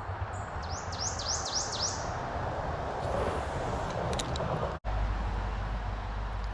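A songbird sings a quick run of about five sharp, falling notes about a second in, over a steady outdoor noise with a low rumble. The sound cuts out for an instant a little before the end and comes back as a steadier low hum.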